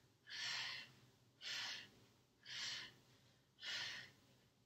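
A woman breathing hard in short, audible breaths during bicycle crunches, about one breath a second, four in a row, in rhythm with her twists.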